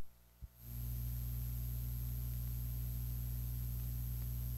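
Cassette playback of a Maxell UE-60 tape before the programme starts. A click in the first half-second, then steady tape hiss with a low mains hum.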